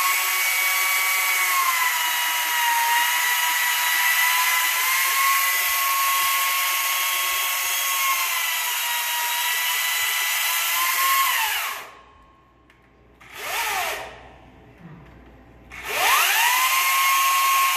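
Chainsaw running at high speed with a steady high whine that dips slightly in pitch now and then. It cuts out about two-thirds of the way through, gives one short burst, then spins up again near the end.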